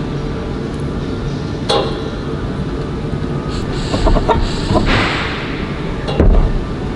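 Steady low hum with a few sharp clicks and knocks from bow thruster parts being handled. A short scraping hiss comes about five seconds in, and a louder knock follows soon after.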